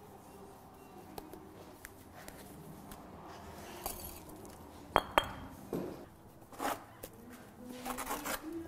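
Masonry work on fire bricks: two sharp metallic clinks about five seconds in, like a steel trowel striking brick, followed by short scrapes of mortar being spread and trimmed.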